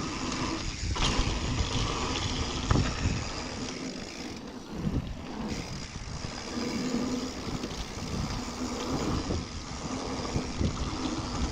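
Mountain bike descending a dirt trail: wind rushing over the action camera's microphone, with the bike knocking and rattling over bumps in the ground.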